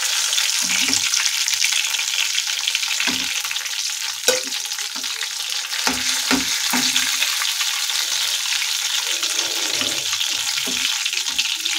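Bread-coated taro (arbi) rolls sizzling as they deep-fry in hot oil in a black iron kadhai, a steady hiss. A few sharp taps of a steel slotted spoon against the pan and plate come between about three and seven seconds in, the sharpest near four seconds, as rolls are lifted out.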